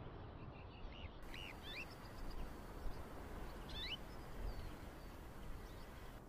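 Faint, short, high chirping calls: a cluster about a second in and a couple more near four seconds in, over a low wind-like rumble.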